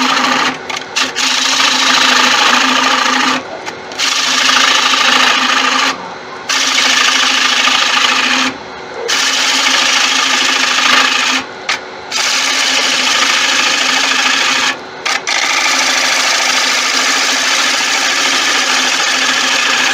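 Turning tool hollowing out the inside of a wooden bowl spinning on a Laguna 1836 wood lathe: a loud, even hiss of cutting in passes of two to three seconds, broken by about six short gaps, over the lathe's steady hum.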